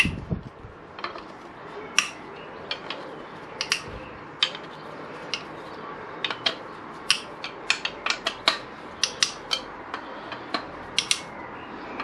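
T-bar hex tool working the generator cover bolts on a Suzuki SV1000 engine: a string of sharp, irregular metal clicks and ticks as the tool seats in the bolt heads and the bolts crack loose. The clicks come closer together in the second half.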